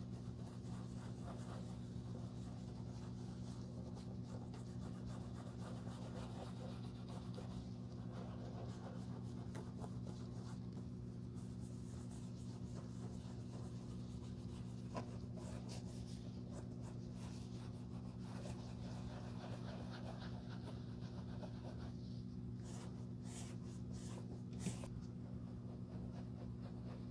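Cloth and a bristle brush rubbing and buffing the black leather of a loafer: a soft, scratchy rubbing, with a few sharper brush strokes near the end. A steady low hum runs underneath.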